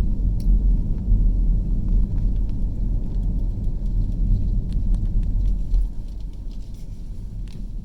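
Steady low rumble of a car driving along a road, heard from inside the car: engine and tyre noise that eases slightly about six seconds in, with a few faint ticks.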